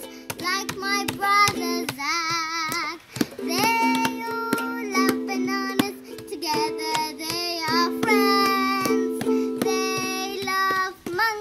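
A child singing an off-the-cuff song to a strummed ukulele: a steady, evenly repeated chord under a sung melody with some long, wavering held notes.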